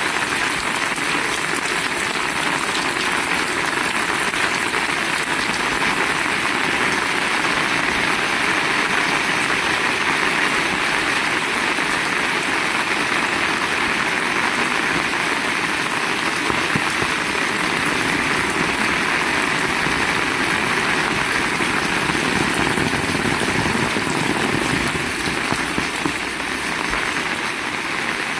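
Heavy rain pouring down with a steady, dense hiss.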